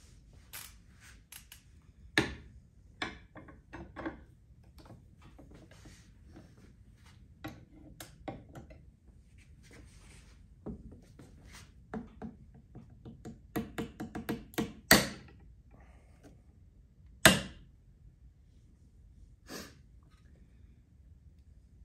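Metal clicks and knocks from a torque wrench being fitted to a Galil rifle barrel clamped in a vise and pulled to final torque. The clicks are scattered at first, bunch together past the middle, and two loud sharp clicks come near the end.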